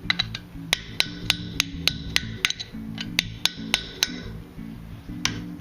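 Hand hammer striking a steel chisel on the anvil, splitting hot iron stock into fork tines. The blows are sharp and ringing, about three a second, pausing about four seconds in, with two more near the end. Background music plays underneath.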